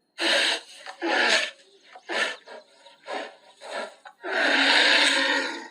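Bear growling and roaring in a series of short rough bursts, ending with one longer roar of about a second and a half.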